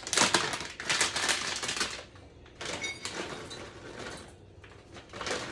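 Raisins being measured out into a cup: crackly rustling and rattling of the packaging and fruit, in two long bursts and a short one near the end.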